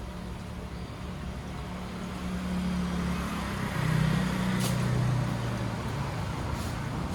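A motor running with a low hum that swells louder and shifts in pitch about halfway through, then eases off.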